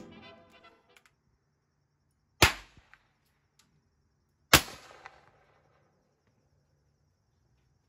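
Two sharp gunshot reports about two seconds apart, each with a short ringing echo, one of them the Austrian M1854 Lorenz percussion rifle firing a guncotton cartridge. A few faint handling clicks come before them.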